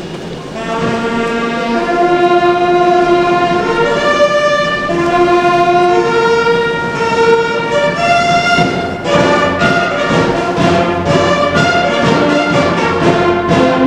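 Instrumental orchestral music with held string-like melody notes, growing fuller partway through. It is played as the accompaniment to a national flag salute.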